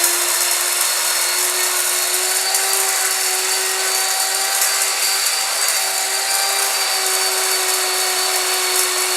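Stainless steel electric grain grinder's high-power motor running loud, with a steady whine over a hiss as the blade grinds grains.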